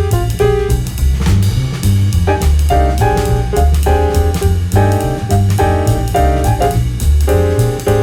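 Background jazz music: piano over double bass and drums with a steady beat.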